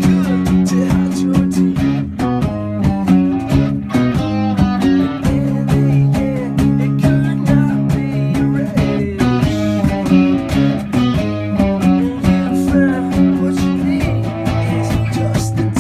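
Guitar-led rock band playing an instrumental stretch of the song live, strummed chords on a steady beat with some bending lead-guitar notes partway through.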